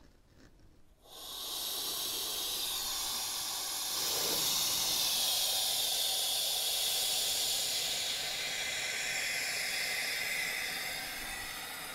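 Compressed air hissing out through the valve of a resin-casting pressure pot as it is depressurized from 30 PSI. The hiss starts about a second in, holds steady and eases off near the end as the pressure falls.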